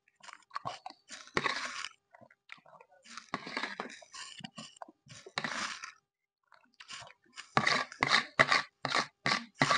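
A spoon scraping and clacking in a large plastic bowl of gelatin, with chewing. After about seven and a half seconds the spoon strokes come quickly and evenly, about three a second, as the last of the gelatin is scooped up.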